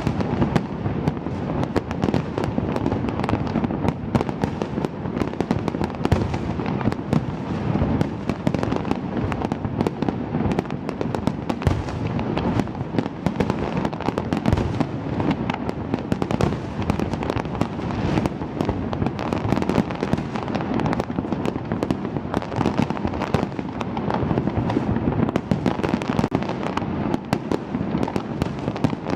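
Fireworks display going off in a dense, unbroken barrage of bangs, many a second, over a continuous low rumble.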